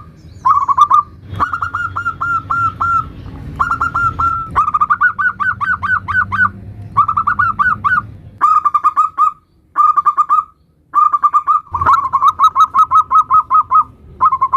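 Zebra doves (perkutut) singing the 'nutut' song, one cooing phrase of quick repeated notes after another with short pauses between them.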